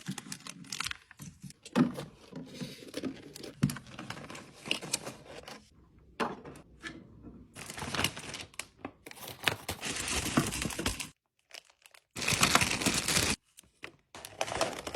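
Plastic snack packaging crinkling and rustling as it is handled, with small knocks, in short spans broken by brief silences.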